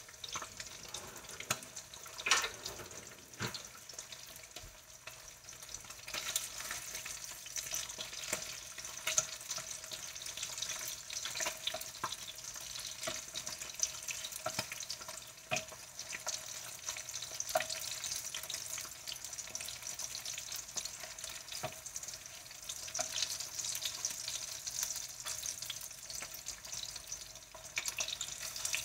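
Spam slices sizzling steadily in a nonstick frying pan, a constant hiss dotted with small spitting crackles. A few sharper clicks come as the slices are turned over with wooden tongs.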